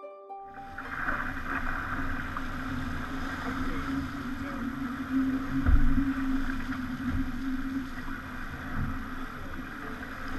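Pogo 30 sailing yacht under way at sea: a steady rush of water and wind with a constant low hum, and irregular gusts buffeting the microphone, the strongest about six seconds in.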